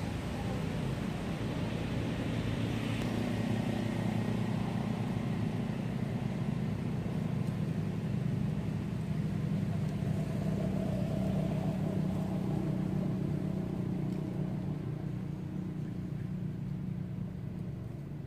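Engine of a passing vehicle droning steadily at a distance, swelling over the first several seconds and fading away near the end.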